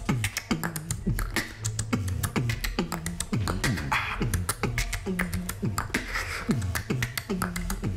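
Beatboxing done without the lips, the mouth held open by a cheek retractor: fast clicking percussion over a low bass tone that slides down in pitch, repeated about twice a second, with a few short hissy sounds.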